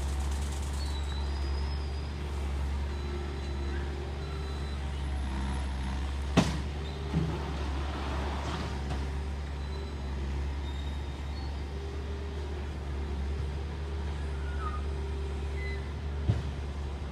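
Heavy construction machinery running with a steady low engine rumble, with a sharp bang about six seconds in and another near the end.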